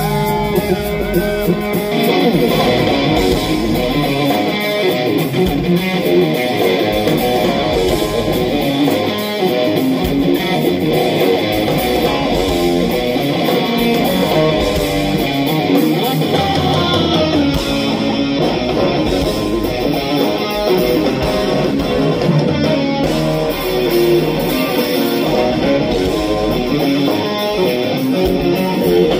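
Live rock instrumental: an electric guitar playing a busy lead line, backed by drums and bass guitar.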